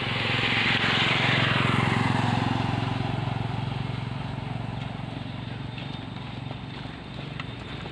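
A motorcycle passes close by, its engine loudest about a second or two in, then fading as it rides off down the road.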